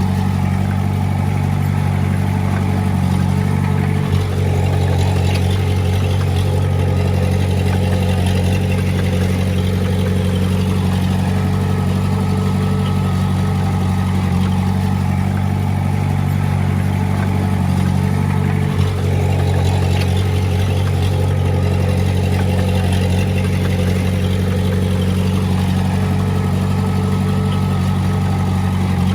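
Diesel engine of heavy earthmoving equipment running steadily at a constant speed.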